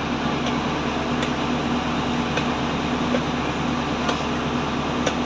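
Steady mechanical hum over a bed of noise, with a few faint knocks scattered through it, fitting the butcher's knife striking the wooden chopping block.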